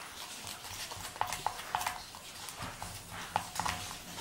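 Foamy slime being stirred with a wooden stick in a glass bowl, giving irregular sharp wet clicks and pops in two clusters, about a second in and again about three seconds in.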